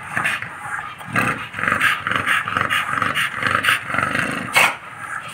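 American bully dog growling, a rough, pulsing growl that keeps going, with one sharp click about four and a half seconds in.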